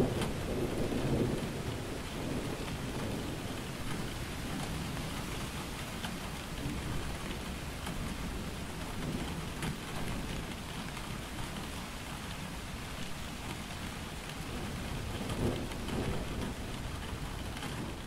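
Steady rain falling on leaves and a wet road, with low rumbles of thunder near the start and again near the end.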